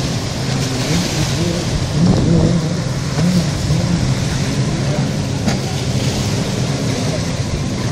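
Jet ski engine running, its pitch rising and falling as the throttle is worked, over a steady rushing hiss.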